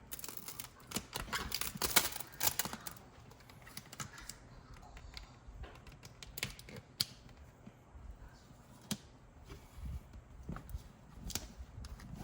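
Irregular sharp clicks and taps from hands working peel-and-stick backsplash tiles, a quick flurry in the first few seconds, loudest about two seconds in, then scattered single clicks.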